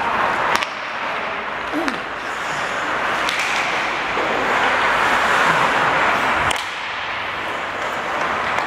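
Ice hockey play in an arena: a steady hiss of skate blades on the ice, broken by a few sharp clacks of sticks and puck. The hiss swells for a few seconds and drops off suddenly about six and a half seconds in.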